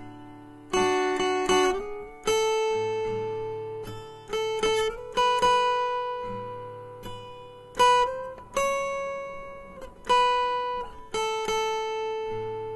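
Background music: an acoustic guitar plucking a slow melody, each note or short cluster of notes ringing out and fading before the next.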